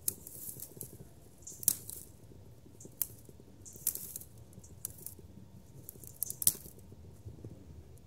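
A long-handled dip net worked through weeds and water at a channel bank: short, irregular rustling and swishing bursts, about six of them, some starting with a sharp click.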